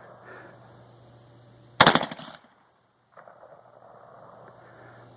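A single AR-15 rifle shot about two seconds in: a sharp crack with a short decaying echo.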